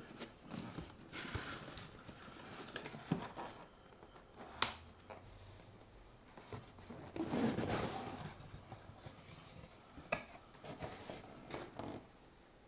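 Corrugated cardboard mailer box being handled and opened: scraping and rustling of cardboard with a few sharp taps and clicks, and a longer rustle a little past halfway as the lid flap is opened.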